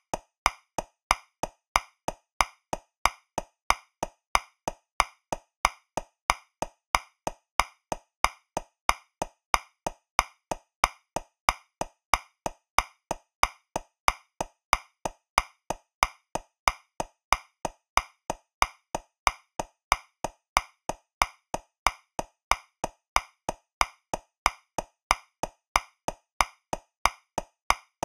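Metronome clicking steadily at 185 beats per minute, about three clicks a second, in 2/4 time. Every other click, the first beat of each bar, is accented and louder.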